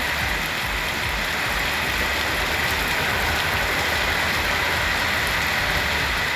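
Heavy rain falling steadily on a wet road, a continuous even hiss, with a low rumble underneath.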